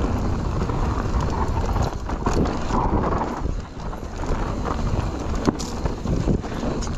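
Mountain bike riding fast down a dry dirt trail: tyres rumbling over the ground and the bike rattling, with constant clicks and clatter. Wind rumbles on the camera microphone.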